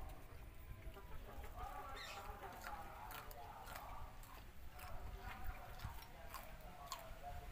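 Chickens clucking, mixed with sharp clicks of chewing and crunching as raw vegetables and rice are eaten by hand.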